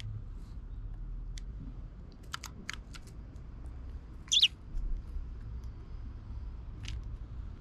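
Eurasian tree sparrows feeding on mixed seed: scattered sharp clicks of beaks pecking at seeds, with one short, loud chirp about four seconds in, over a steady low rumble.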